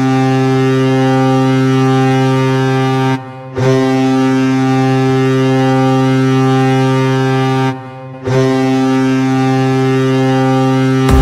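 Hockey goal horn blowing long, steady, deep blasts of about four seconds each, with two short breaks between them. Music comes in right at the end.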